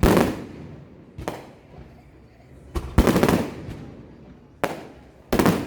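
Fireworks exploding: about six sharp bangs a second or so apart, each trailing off in a lingering echoing rumble, the loudest about three seconds in.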